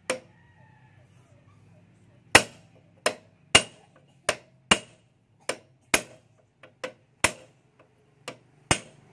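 Hammer striking a steel punch against the front axle of a Bajaj RE three-wheeler. About a dozen sharp metallic blows, starting a little over two seconds in and roughly half a second apart, drive the axle out of the hub.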